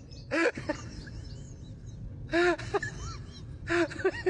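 Three short, high-pitched vocal calls, each rising and falling in pitch, over the steady low rumble of a city bus interior.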